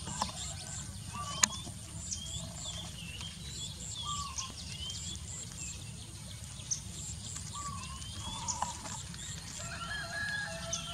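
Outdoor ambience of scattered short chirping animal calls over a steady low rumble, with a single sharp click about a second and a half in.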